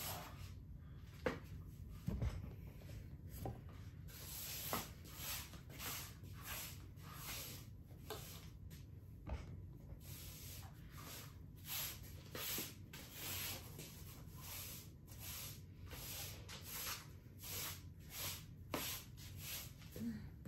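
Broom sweeping dog hair off the floor: a run of short, scratchy brushing strokes, roughly one a second.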